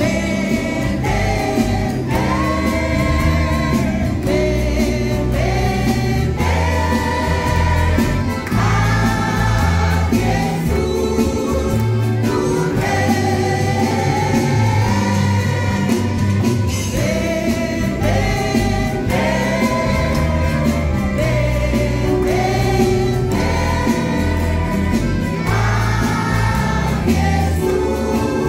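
Christian praise music: a choir singing a melody over a band with a strong bass line and a steady beat.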